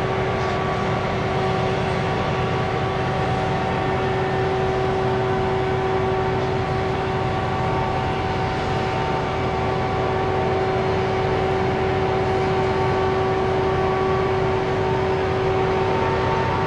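Heavy machine's engine running steadily under load, with a constant whine of several steady tones over the engine noise.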